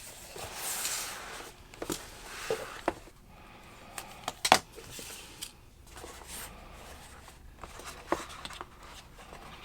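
Cardboard and plastic packaging being handled during an unboxing: a soft rustle at first, then scattered light clicks and taps, the sharpest about four and a half seconds in.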